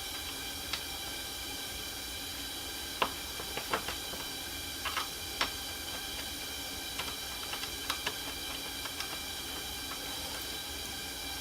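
Scattered light clicks and taps of a hand tool and small screws as a replacement radiator cooling fan motor is screwed into its shroud, irregularly spaced, over a steady background hiss.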